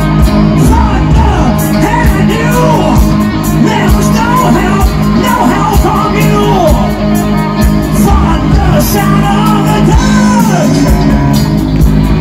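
Live amplified music, loud throughout, with a man singing and shouting into a handheld microphone over steady sustained backing notes.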